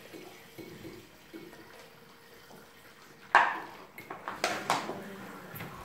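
Vinegar being poured from an upturned plastic bottle into a glass: a faint trickle of liquid. About three seconds in comes a sudden loud glug or bottle sound, followed by several short sharp clicks.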